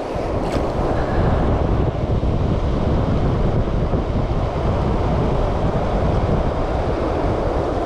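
Steady rush of fast-flowing river water close by, with low wind rumble on the microphone.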